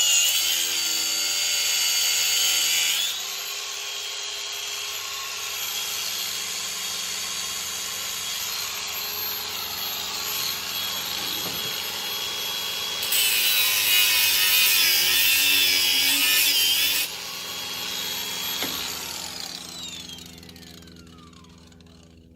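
Battery-powered cutting tool cutting into the steel tube of a tractor PTO drive shaft. It is loud at first, then quieter and steady, then loud again for a few seconds, and finally winds down with a falling pitch near the end.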